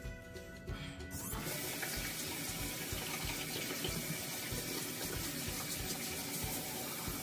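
Bathroom sink tap turned on about a second in and running steadily into the basin, with hands being washed under it.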